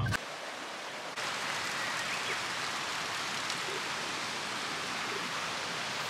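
Steady rush of falling water from a small waterfall and its stream: a continuous even hiss that gets a little louder about a second in.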